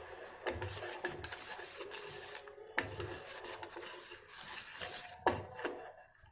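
Spoon stirring honey into a pot of homemade cough syrup on the stove, scraping the bottom of the pot in repeated strokes.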